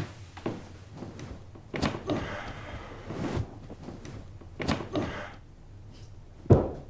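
Fabric rustling and soft knocks and thuds as a man shifts and lies back on a sheet-covered sofa, with a louder thud near the end.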